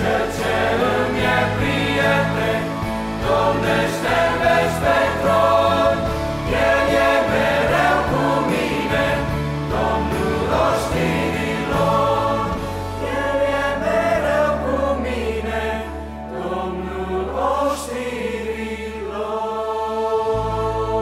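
Mixed choir of young men and women singing a Christian hymn in Romanian with instrumental accompaniment, settling onto a long held chord near the end.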